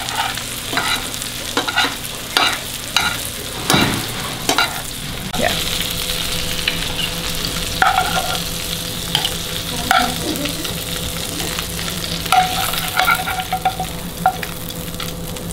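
Fish fillet sizzling in a skillet of hot butter and oil while it is basted with a metal spoon: a steady sizzle with repeated clinks and scrapes of the spoon against the pan.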